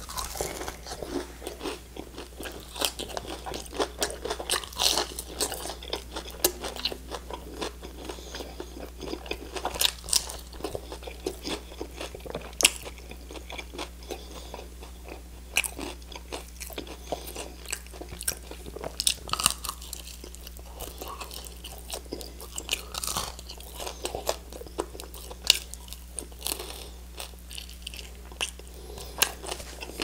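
Close-up crunching and chewing of crispy fried chicken wings, bites cracking the crust, with the crunches coming thick and fast at first and thinning out in the second half. A steady low hum runs underneath.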